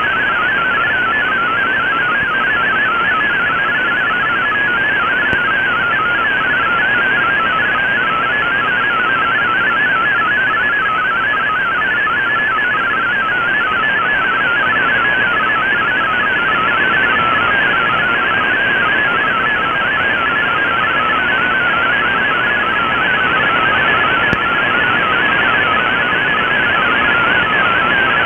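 MFSK32 digital text signal on shortwave, heard through an Icom IC-R8600 receiver: a rapid, steady warble of hopping tones over a bed of band hiss. It is the data stream that the decoding software is turning into text.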